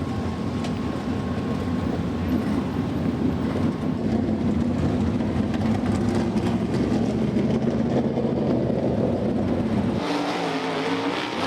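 Several dirt-track race car engines running at low revs as a pack of cars circles together. About ten seconds in, the deep rumble gives way to higher engine notes that rise and shift as cars rev.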